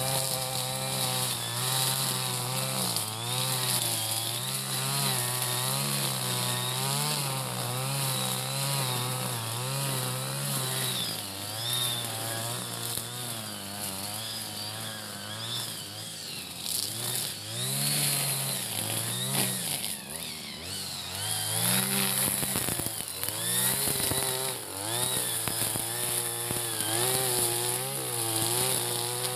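Backpack petrol brush cutter running as it cuts grass, its engine pitch wavering up and down with the throttle. Around two-thirds of the way through, the revs drop and climb back several times.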